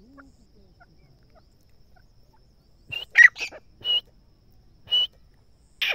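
Grey francolin calling: after a quiet start, a quick run of four short, sharp calls about three seconds in, then single calls about a second apart.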